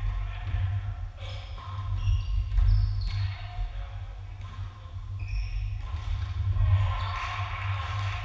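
Indoor volleyball rally on a hardwood gym court: the ball is struck and bounces, sneakers give short high squeaks, and players' voices echo in the hall over a steady low hum.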